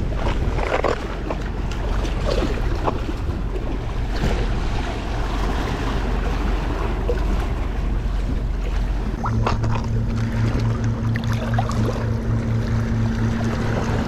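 Wind buffeting the microphone over surf washing on the jetty rocks, with a few short clicks and splashes. About nine seconds in, a steady low engine hum joins, a boat motor running in the channel.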